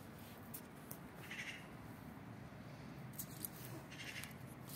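Kitten mewing twice, two short high calls about two and a half seconds apart, with a few light clicks between.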